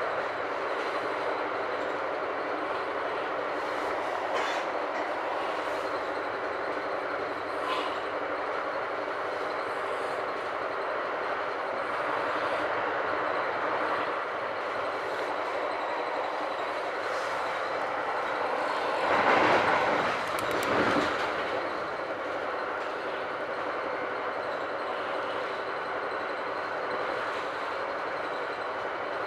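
Metra Rock Island Line commuter train in motion, heard from inside a passenger car: a steady rumble and rush of wheels on the rails, with a few light clicks and a louder double swell of noise about nineteen to twenty-one seconds in.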